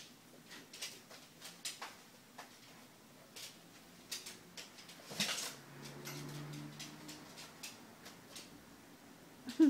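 Beagle puppy rummaging through papers in a plastic bin: paper rustling with scattered light clicks and knocks, a louder rustle about halfway through, and a short sharp knock near the end.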